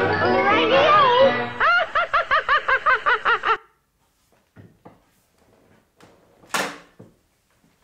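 Cartoon soundtrack: music with a sliding voice, then a rapid, high 'ha-ha-ha' cartoon laugh, about four or five beats a second, that cuts off abruptly a little after three seconds in. After it, a quiet room with a few faint knocks and one short rustle.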